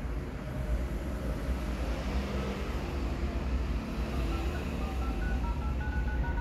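A quick run of short touch-tone keypad beeps from an Oppo A37 smartphone's dialer, each beep registering a digit tapped on the touchscreen. They start a little over two seconds in, over a steady low rumble that is the loudest sound throughout.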